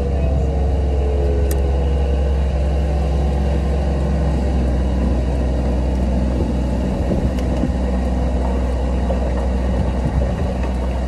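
Golf cart on the move: a steady low rumble from the running cart and its rolling, with one brief click.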